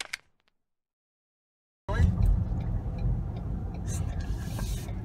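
Steady low rumble of a car's engine and road noise heard from inside the moving car, starting abruptly about two seconds in after a brief dead silence.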